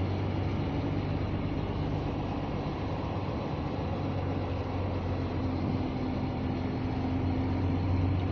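Scania G460 truck's straight-six diesel engine heard from inside the cab, running steadily at low revs as the truck rolls slowly: an even, low hum.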